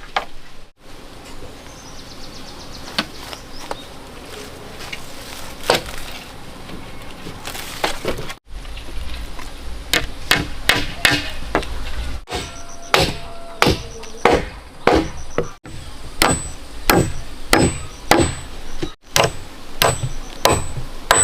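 Hand hammering on wood: sharp single blows, scattered at first, then coming quickly and irregularly from about ten seconds in. Faint insect chirping repeats evenly in the background near the end.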